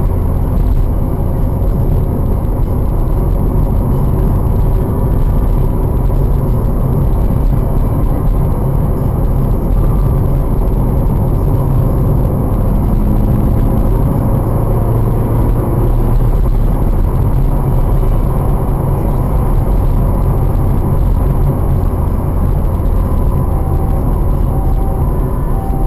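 Steady low rumble of engine and tyre noise inside a car's cabin while driving along a road.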